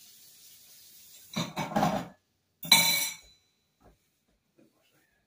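Dishes knocking and clinking at a kitchen sink: a clatter about a second and a half in, then a sharper, ringing clink, with faint running water before them.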